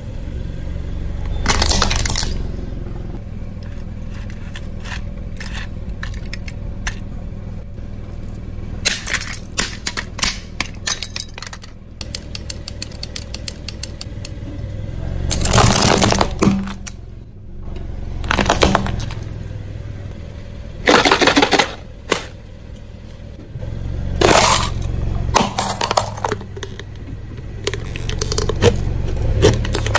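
A car's tyre rolling over objects and crushing them: a run of sharp cracks and snaps and several louder crunches, over the low rumble of the car's engine.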